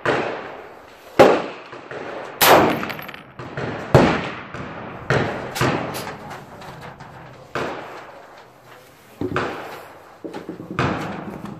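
A string of about nine rifle shots from a Springfield Armory M1A Super Match in .308 Winchester, each shot echoing briefly. The four loudest come about a second apart in the first five seconds, and smaller ones follow more spaced out.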